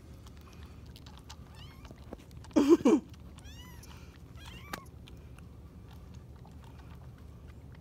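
Kitten mewing: one loud, short cry in two or three quick pulses about two and a half seconds in, followed by a few faint high squeaks and small clicks during bottle feeding.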